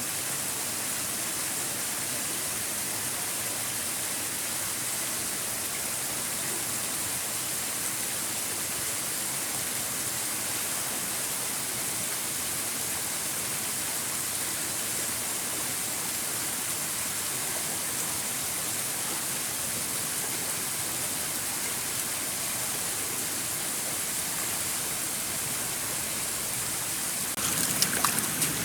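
Steady rushing hiss of flowing stream water. About a second before the end it turns louder and rougher, with a few sharp knocks.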